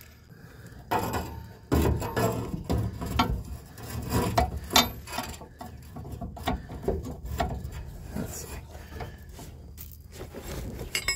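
Hand socket ratchet clicking in irregular runs as a bolt at the transmission mount is worked loose through a long socket extension.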